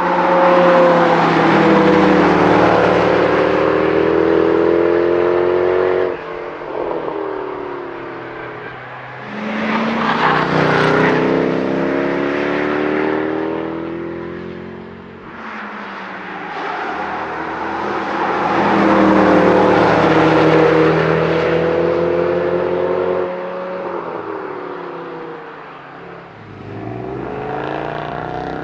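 Mercedes CLK63 AMG Black Series' 6.2-litre V8 accelerating hard past in several passes, its note climbing in pitch through the gears and dropping at each upshift.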